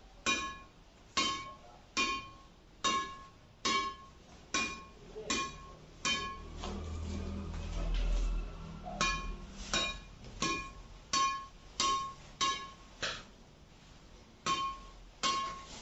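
Shuttlecock struck again and again on the seller-fitted factory strings of an Apacs Graphite 999 badminton racquet, each hit a sharp ping that rings briefly. The hits come at a steady pace of a little over one a second, with a break of a few seconds about halfway through and a shorter one near the end.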